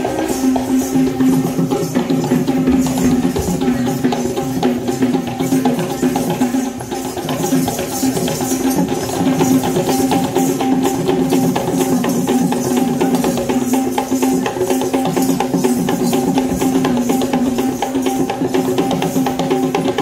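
A troupe of Kandyan drummers playing gata bera drums in procession: a fast, continuous rhythm of sharp hand strokes, with a steady held note sounding over the drumming.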